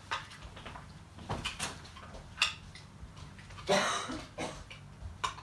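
AA batteries being pushed into a plastic battery holder: a string of small clicks and knocks from the batteries and plastic being handled, with a brief scraping rustle a little before the middle.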